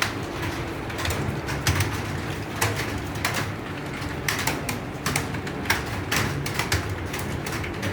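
Typing on an Acer computer keyboard: sharp key clicks at an irregular pace of a few strokes a second. A low cooing runs underneath.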